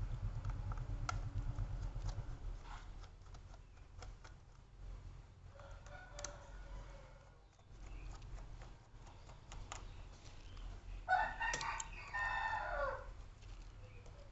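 A rooster crowing in the background, once loudly for about two seconds near the end, with a fainter call about midway. Light scattered clicks and taps from small hand work on a laptop case are heard through it.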